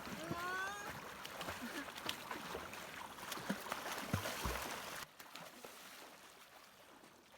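Steady rush of a river's water, with small splashes and knocks, and a distant voice calling briefly near the start. The water noise drops sharply about five seconds in.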